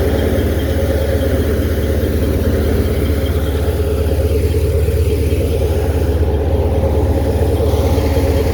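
An engine running steadily at an even speed: a loud, low drone with rapid, even pulsing that does not change.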